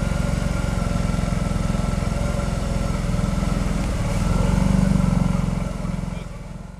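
ATV engine running under load with a fast, steady low pulse. It gets louder about four to five seconds in as the quad ploughs through deep water, then fades out near the end.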